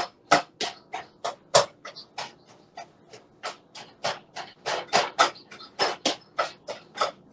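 A utensil knocking repeatedly against a mixing bowl while mashing cooked broccoli: sharp, even taps about three a second.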